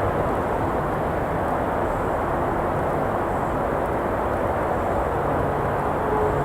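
Steady rumble of traffic on a nearby road, with a vehicle's engine hum rising into it near the end.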